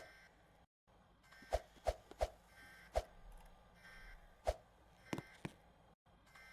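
A series of about eight sharp clicks or taps at irregular intervals over a faint hiss, with two brief moments where the sound cuts out completely.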